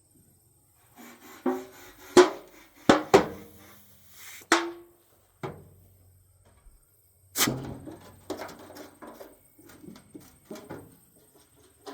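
Sharp knocks and clanks from handling a dented old metal oil can and a refrigerant can, some strikes ringing briefly, followed by lighter rattling and clatter.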